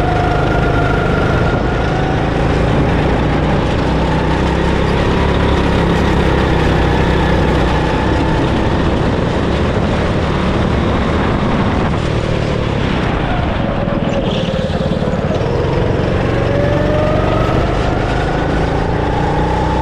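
Go-kart engine running at speed, heard close up from the kart itself, with a steady rush of noise. The engine pitch dips about twelve seconds in as it comes off the throttle, then climbs steadily over the last few seconds as it accelerates again.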